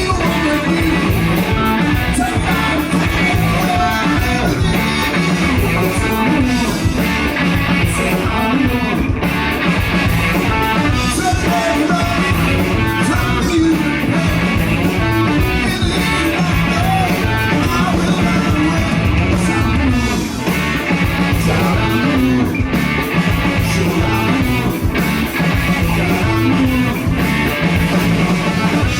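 Live rock band playing at full volume, electric guitar to the fore over a steady rhythm section.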